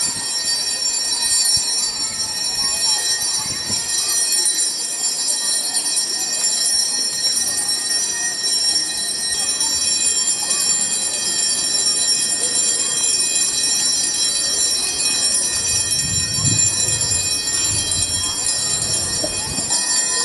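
Small altar bells ringing continuously in a steady high jingling, as they are rung during benediction while the Blessed Sacrament is carried.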